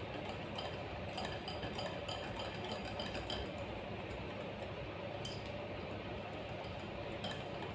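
Wire whisk beating a besan and semolina batter in a glass bowl, the wires clinking lightly against the glass. The clinks come thick and fast for the first few seconds, then thin out to a few.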